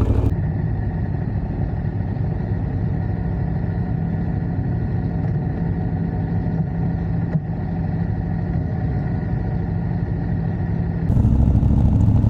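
Motorcycle engine running at a steady, unchanging speed. The sound changes abruptly just after the start and again about a second before the end.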